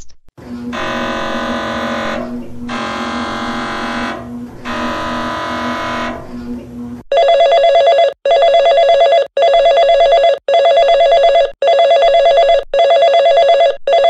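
Emergency Alert System test tones. First a buzzing tone sounds in three bursts of about two seconds each. About halfway through, the two-tone attention signal starts, beeping in pulses about once a second.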